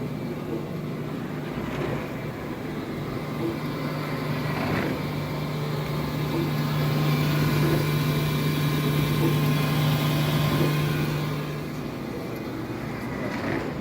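ROSA LR20 CNC surface grinder running, its 450 mm grinding wheel on a 15 kW motor giving a steady hum. From about six seconds in, a hiss swells and stays loud until nearly twelve seconds before easing off, as the wheel grinds through a pass after being fed a small increment.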